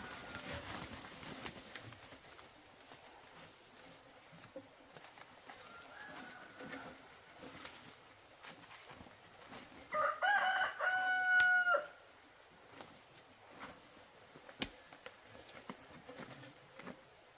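A rooster crowing once, about ten seconds in, a loud call lasting about two seconds, over a steady high-pitched tone.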